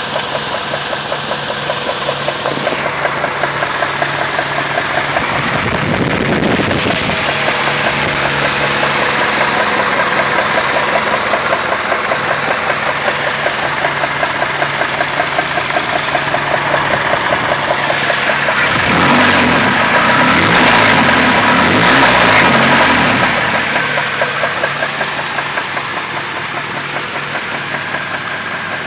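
Engine running with a fast, even, rhythmic knock, picking up in speed and loudness for a few seconds about two-thirds of the way through, as if revved. The owner cannot tell whether the knock is rod knock.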